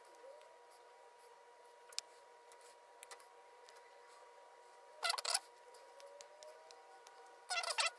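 Small pocketknife blade scraping and cutting the plastic insulation of a two-core electrical cable: faint ticks, then short bursts of scraping about five seconds in and again near the end, over a faint steady whine.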